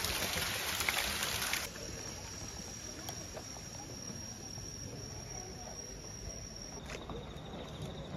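Night insects calling: a steady high-pitched trill, joined near the end by a lower, rapidly pulsing chirp. A louder hiss covers the first second and a half and cuts off suddenly.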